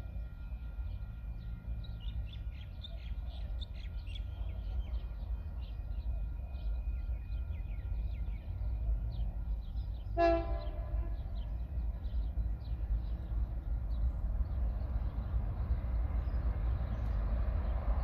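Approaching train sounding its horn once, a short blast about ten seconds in, over a steady low rumble, with birds chirping early on. The train's running noise builds toward the end as it draws closer.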